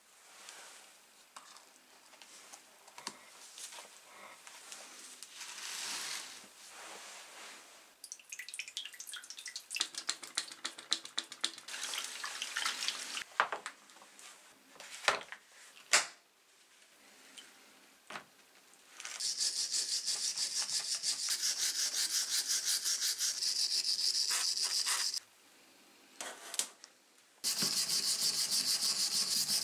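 Brush scrubbing a rusty steel hammer head in soapy water in a stainless steel tray, loosening rust after an antirust soak: a fast, steady back-and-forth scraping in two long stretches in the second half. Before it, light handling clicks and two sharp knocks.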